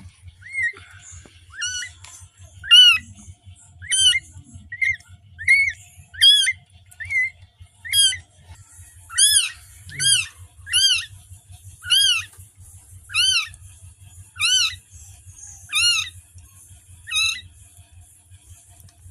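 Newborn kitten mewing just after birth: repeated short, high-pitched cries, about one a second, each rising and then falling in pitch, growing stronger about halfway through.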